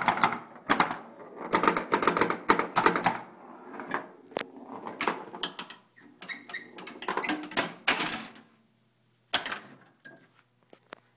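Firepower pinball machine's mechanism clattering: dense, irregular clicks and knocks of solenoids, flippers and ball for about eight seconds, one more sharp knock a second later, then a few faint ticks.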